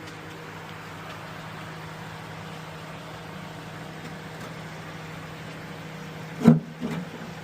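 A steady low mechanical hum, with a sharp loud knock about six and a half seconds in and a lighter one just after.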